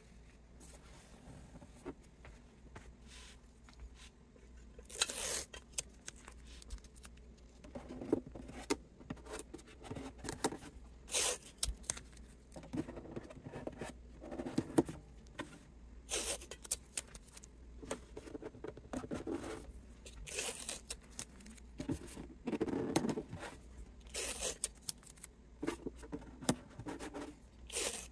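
Hand work on an acoustic guitar's binding: a run of irregular scraping and ripping strokes a few seconds apart, with quieter handling between.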